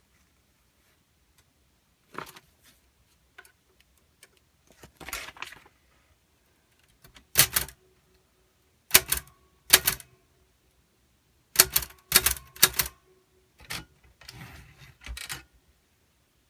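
We R Memory Keepers Typecast manual typewriter being worked by hand: soft clicks and handling at first, then about half a dozen sharp, separate clacks of its key and type mechanism at an uneven pace in the second half, while the ribbon is not feeding right.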